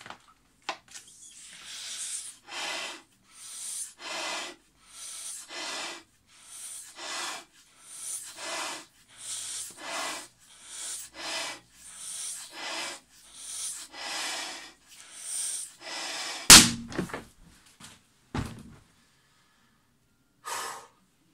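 Person blowing into the neck of a 36-inch (Q36) latex balloon in rhythmic puffs, about one every three-quarters of a second, until the balloon bursts with a single loud bang about sixteen seconds in. A dull thump follows about two seconds later.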